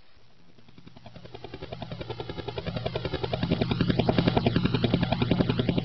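Helicopter approaching fast, its rotor beat a rapid, even pulsing that grows steadily louder and peaks in the second half as it comes close overhead.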